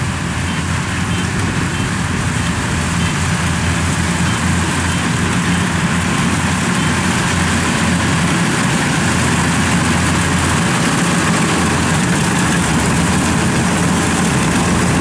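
Kubota DC-93 rice combine harvester working in standing rice, its diesel engine and cutting and threshing machinery running at a steady, loud drone. It grows a little louder as the machine comes closer.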